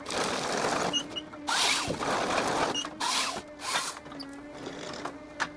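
Forestry harvester at work: a steady machine hum broken by several loud bursts of rushing noise as the head cuts and handles a trunk.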